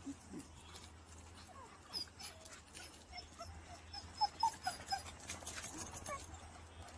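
Dog whining in a run of short, high whimpers, coming thick and loudest about halfway through, with a few light clicks in between.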